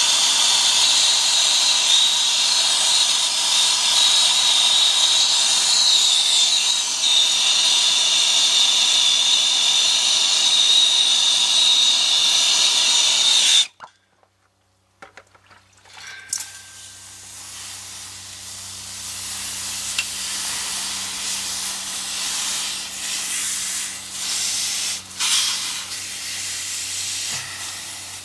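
Brazing torch flame hissing steadily on a copper refrigerant line joint, then cut off suddenly about halfway through as the torch is shut off. A quieter hiss with a few clicks follows.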